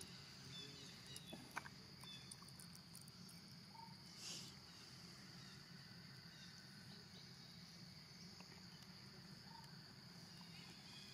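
Near silence with a faint, steady, high-pitched insect chorus. A few soft clicks come in the first two seconds, and there is a short hiss about four seconds in.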